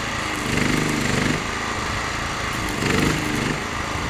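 Electric stick-welding arc crackling and hissing steadily as a steel bracket is welded onto a pole, with an engine running underneath that grows louder twice.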